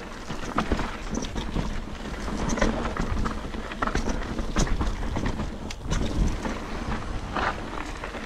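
Mountain bike riding fast down a rough trail: wind buffeting the microphone as a steady low rumble, over many sharp clicks and knocks as the tyres and frame rattle across dirt and rock.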